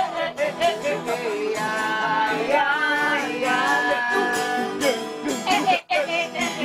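Casual group singing with two strummed acoustic guitars and a hand drum, the voices sliding and wavering over quick rhythmic strokes. A brief drop-out comes almost six seconds in.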